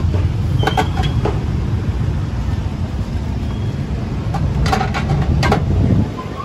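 Steady low rumble of motorbike and street traffic, with two clusters of short sharp clinks, about a second in and again near five seconds; the rumble eases a little near the end.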